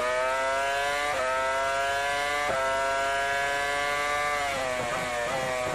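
Formula 1 car engine at full throttle, heard onboard: the revs climb and drop sharply at two quick upshifts, about one and two and a half seconds in, then hold high. Near the end the pitch falls in steps as the driver lifts and downshifts.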